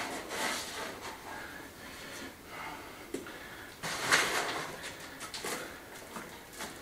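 Sand and gravel bedding mix poured from a bag under a flagstone propped on edge, a short rush of grit about four seconds in, with light scrapes and a click of stone before and after.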